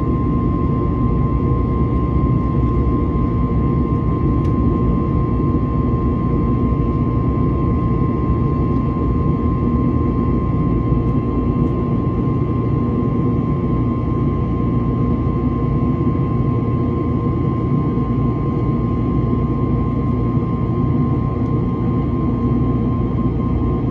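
Steady cabin noise of an Airbus A321neo in flight: a constant roar from its CFM LEAP-1A jet engines and the airflow, with a steady high tone above it.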